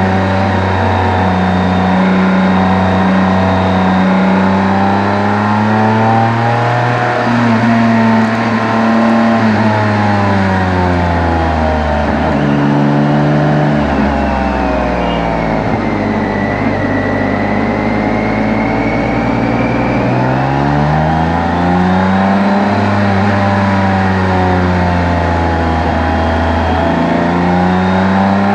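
Motorcycle engine and exhaust heard on the bike while riding, the revs rising and falling through gear changes. Midway the revs sink low for several seconds, then build up again.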